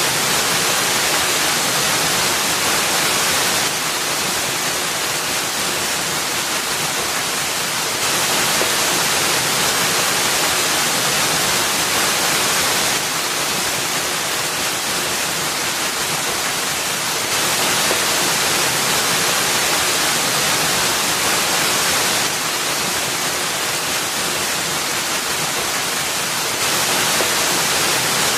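Waterfall: a steady rush of falling water, heavy in the high hiss, with no break. Its level steps slightly up and down every four or five seconds.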